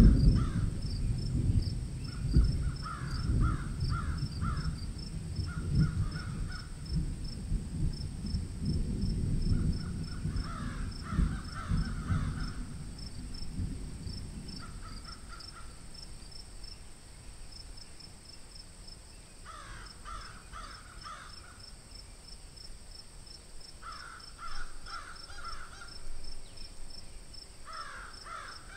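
Crows cawing in runs of several calls, coming back every few seconds, over a steady fast chirping of insects. A loud low rough noise fills the first half and fades out about halfway.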